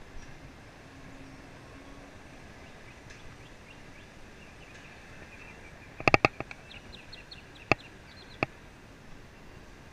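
Bird calling: a quick run of sharp, loud chirps about six seconds in, then two single chirps, with faint high twitters around them over steady outdoor hiss.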